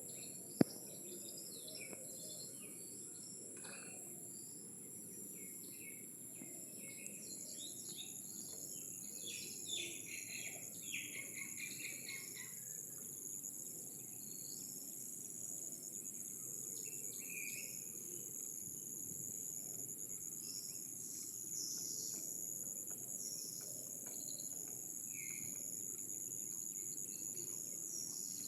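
Outdoor ambience of insects trilling steadily at a high pitch, with scattered bird chirps over a low steady rush. A single sharp click about half a second in is the loudest moment.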